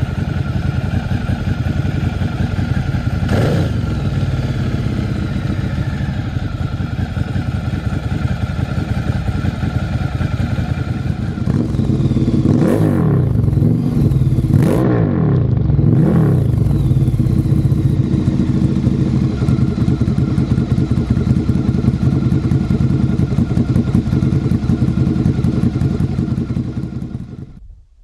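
Ducati Monster 1100 EVO's air-cooled L-twin engine running at operating temperature through a Competition Werkes GP slip-on exhaust, with quick throttle blips that rise and fall: one about three seconds in and a cluster of three or four around the middle. The sound cuts off shortly before the end.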